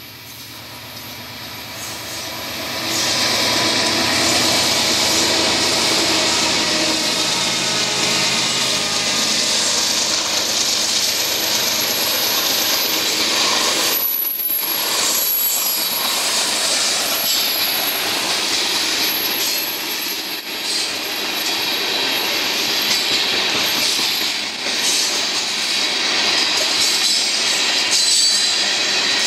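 A loaded oil train accelerating past: the GE diesel locomotives grow loud over the first few seconds, then the loaded tank cars roll by steadily with loud flat wheels. A thin high wheel squeal runs along with the cars.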